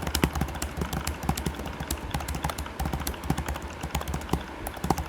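Fast typing on a computer keyboard: a rapid, uneven stream of key clicks, several a second, over a steady low hum.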